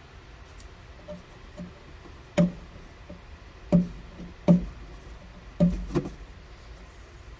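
A series of short knocks with a slight hollow ring: a few faint ones, then five louder ones between about two and six seconds in.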